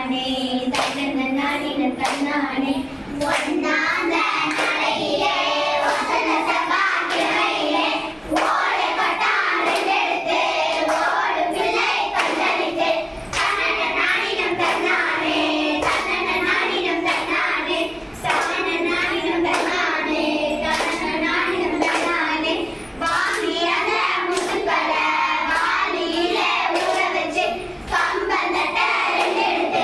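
A group of schoolgirls singing a Tamil kummi folk song in unison while clapping their hands in a steady rhythm, with a short break between sung lines about every five seconds.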